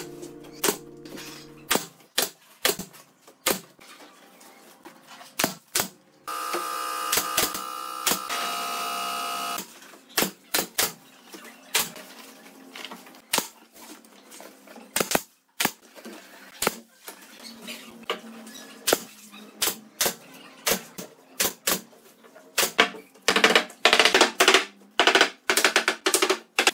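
Pneumatic nail gun firing repeatedly, fastening fabric sheeting to a wooden frame: sharp irregular shots, spaced out at first and coming fast and loud in a quick run near the end. For about three seconds early on, a steady hissing hum plays under the shots.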